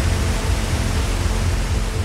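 Steady rush of falling water layered over background music with a heavy deep bass.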